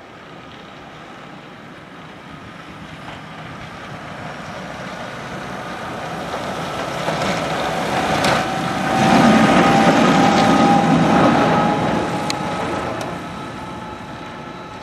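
Fendt 800-series Vario tractor running as it plows snow with a front blade, growing louder as it passes close by around the middle and fading again. A steady whine that rises slightly runs over the engine.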